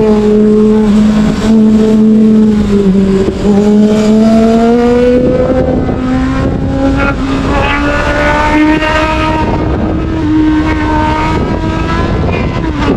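Sport motorcycle engine running hard on an open road, its pitch dipping briefly, then climbing slowly through a long pull before dropping off near the end. A rushing wind noise grows under the engine from about halfway in.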